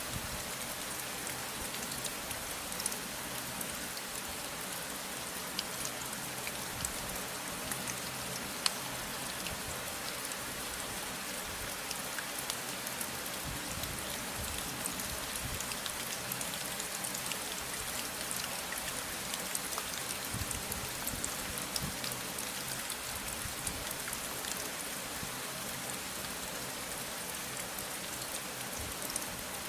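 Steady rain falling, a continuous hiss with many individual drops ticking on a surface.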